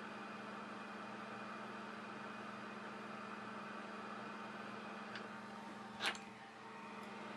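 Hot air rework station blowing with a steady, faint hiss and hum while reflowing solder under a phone CPU. A sharp click comes about six seconds in, with a fainter one just before it.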